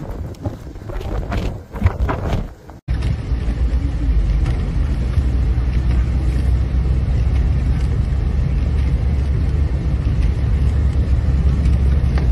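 Gusty wind buffeting the microphone, then, after an abrupt cut about three seconds in, the steady low rumble of a car driving, heard from inside the cabin.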